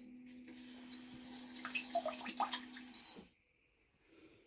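Electronic bidet toilet running its start-up cycle: water running with a steady hum, the water noise growing louder about a second in, then everything stopping abruptly about three seconds in.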